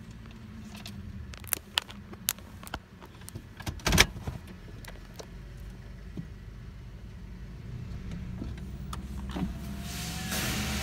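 Heard from inside a car rolling into a D&S Super 5000 automatic car wash bay. The car runs with a low steady hum, with a few sharp clicks and a louder knock about four seconds in. Near the end comes a rising hiss as the wash's water spray starts up.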